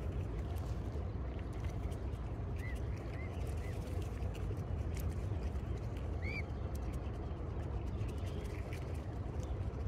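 A steady low rumble with a few short, high chirps from a bird: three in quick succession about three seconds in and one more a little after six seconds, with faint light ticks scattered throughout.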